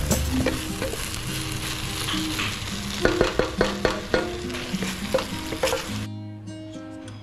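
Pork, tofu and water spinach sizzling in a hot wok while a wooden spatula stirs, with sharp knocks and scrapes of the spatula against the pan, thickest from about three seconds in. The sizzling cuts off suddenly about six seconds in, leaving only background music.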